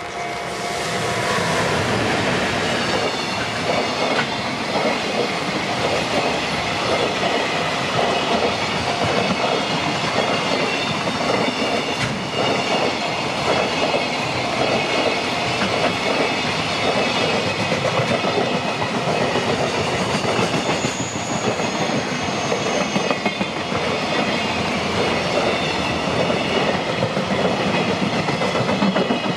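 JR Freight freight train passing close by, its wagons' wheels clicking steadily over the rail joints, with a brief high squeal about two-thirds of the way through.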